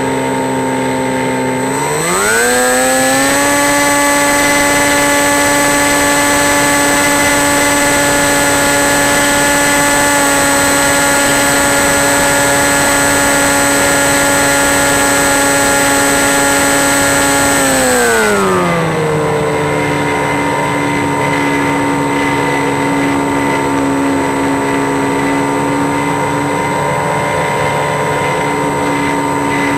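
A motor or engine running steadily. Its pitch rises at about 2 s, holds, then falls back at about 18 s, with a thin high whine above it.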